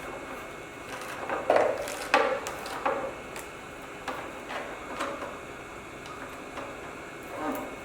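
Plastic mask of an LED display module being pressed and snapped back onto the module: a series of irregular clicks and knocks, the loudest about one and a half and two seconds in.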